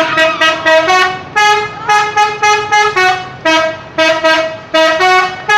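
Telolet multi-tone musical horn of the kind fitted to Indonesian buses, playing a fast tune of short, loud notes, a few each second.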